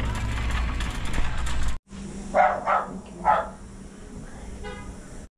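A shop's steady background din, then a dog barks three times in quick succession, loud and sharp, about two seconds in.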